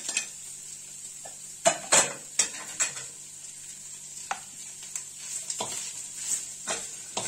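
Cubed meat and chopped peppers sizzling in tail fat in a frying pan, a steady high hiss. Over it come sharp knocks and scrapes of a spoon against the pan as the food is tipped in and stirred, loudest about two seconds in.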